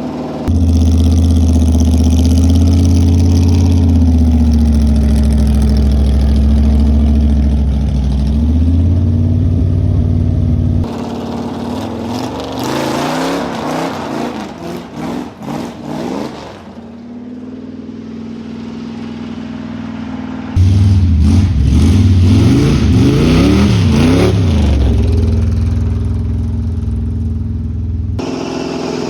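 Car engine running loud with a deep rumble, its pitch shifting up and down as the revs change. Partway through it drops to a quieter, rougher, fluttering stretch, then comes back in loud about two thirds of the way in.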